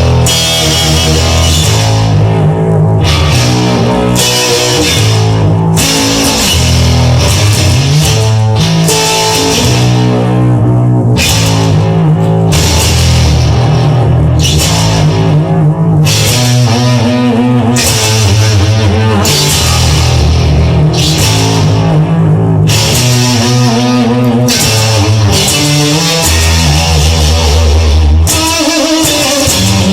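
Loud instrumental rock music led by guitar, with no singing.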